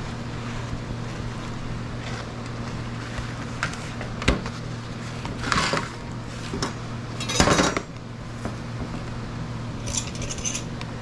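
Paper towels rustling and rubbing as a whole scorpionfish is patted dry on a stainless steel tray, with a sharp metal click about four seconds in, over a steady low hum.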